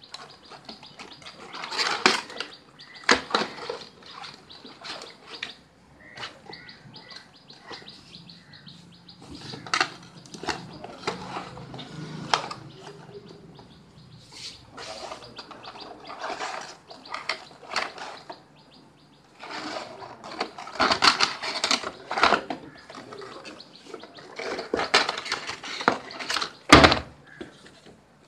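Cardboard trimmer box and its plastic packaging tray being handled and opened: irregular rustling, sliding and scraping of cardboard and plastic in bursts, with sharp knocks now and then, the loudest near the end.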